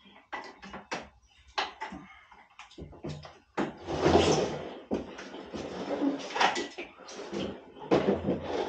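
Handling noises from the mower and its battery gear: a string of short clicks, knocks and rattles, with a longer scraping rustle about four seconds in.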